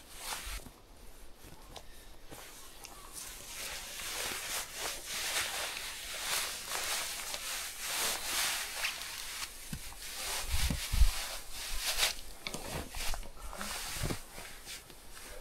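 Footsteps with rustling, a person walking on foot, with a couple of heavier thuds about two-thirds of the way in.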